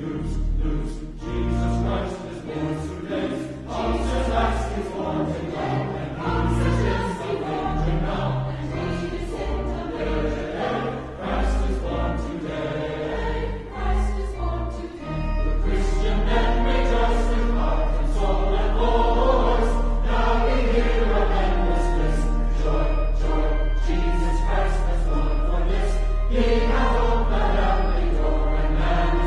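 A choir singing with instrumental accompaniment. About halfway through, the changing bass line gives way to one long, steady low note held under the voices.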